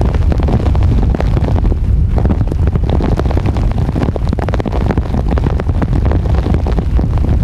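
Strong, gusting storm wind buffeting the microphone in driving rain: a loud, continuous roar with no let-up.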